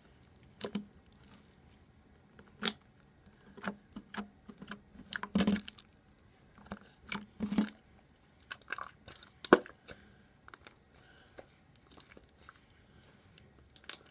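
Soaked, wet fluffy slime being squeezed, folded and stretched in the hands, giving irregular squelches, sticky pops and clicks. The loudest snap comes about two-thirds of the way through.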